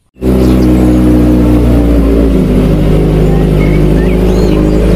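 Kawasaki Ninja sport bike engine running at a steady idle through an aftermarket exhaust, its tone shifting slightly a little over two seconds in.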